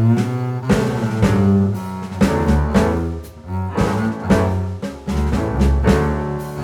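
Background music with a prominent deep bass line and drum hits.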